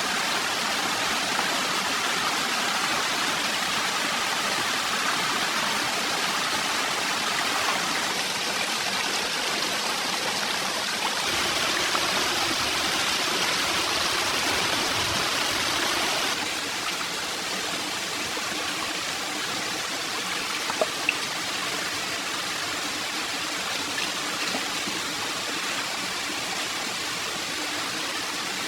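Forest stream water rushing steadily. It is a little louder and brighter from about a third of the way in until just past halfway, then settles, with a couple of faint clicks about two-thirds in.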